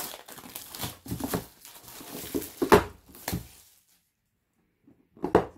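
Plastic shrink wrap being torn and peeled off a cardboard board-game box: irregular crinkling and rustling with small clicks, loudest about halfway, stopping after three or four seconds.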